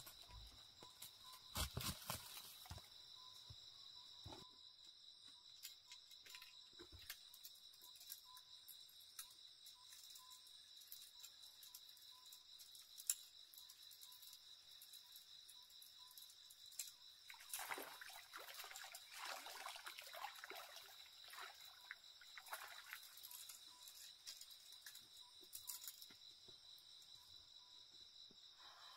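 Faint steady night chorus of crickets and other insects, with a faint repeating note for the first half. Rustling and clicking handling sounds come in about two-thirds of the way through.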